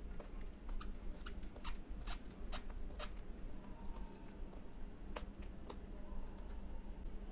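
A person chewing a mouthful of rice and mashed okra, with many short wet mouth clicks, over a steady low fan hum.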